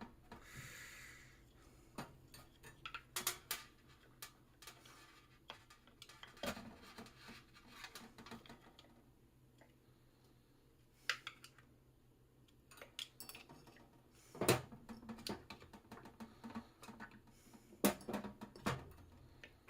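Tools and small parts of a toy electric pedal car's motor gearbox clinking and tapping as it is worked apart by hand, in scattered, irregular clicks with a quiet spell about halfway through.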